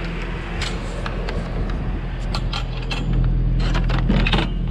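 Fishing rods knocking and clattering against a metal wire rack in a pickup truck bed as they are laid in: a run of sharp clicks and rattles that come thicker in the second half. Under it, a steady low hum of the truck's engine idling.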